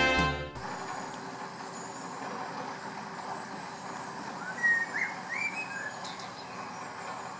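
Steady hum of a narrowboat's engine as it moves along the canal, with a few short rising bird chirps a little before and after the middle.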